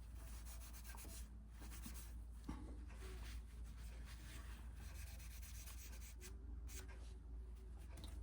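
Faint, repeated rubbing strokes of sandpaper on the hammer's steel head, sanding off paint that went over the lines.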